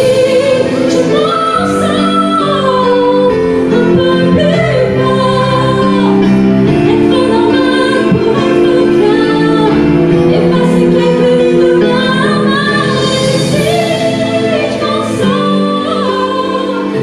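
Music: a woman singing a slow melody over sustained chords.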